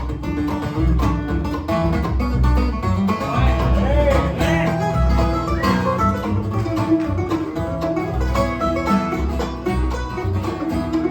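Bluegrass band playing an instrumental break: fast banjo and guitar picking over a steady upright-bass pulse.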